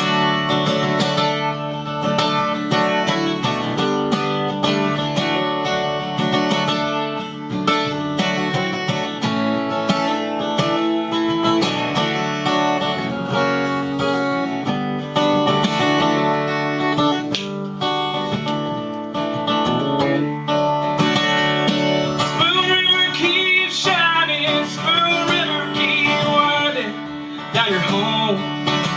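Acoustic guitar playing an instrumental break in a folk-country song, with strummed chords and plucked notes. About twenty seconds in, a second, wavering higher melody line joins.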